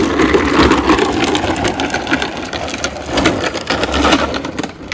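Green Machine ride-on trike's hard plastic wheels rolling over asphalt with a rapid rattling clatter; the big front wheel is cracked and battered, with a bump in it. The sound drops off near the end as the trike moves away.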